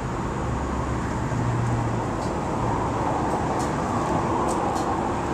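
Steady low mechanical rumble and hum, strongest in the first couple of seconds, with a few faint short clicks later on.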